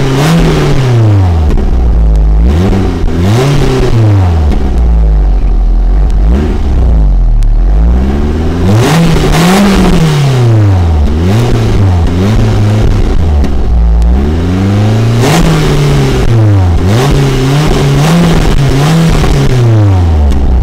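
Exhaust note of a Hyundai i10's 1.1-litre iRDE four-cylinder petrol engine, heard right at the tailpipe, revved again and again from idle: the pitch climbs and falls back with each blip, with a quick run of several blips near the end.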